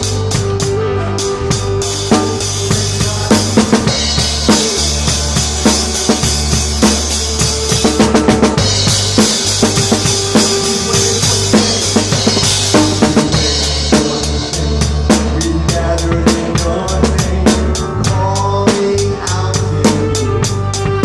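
Live worship band playing an upbeat song, a drum kit keeping a steady, busy beat over sustained bass and keyboard-like chords.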